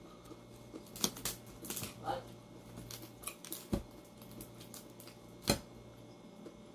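Crisp fried tilapia crackling and crunching as fingers break it apart and pick at it on a paper towel: irregular sharp clicks, with a couple of louder knocks.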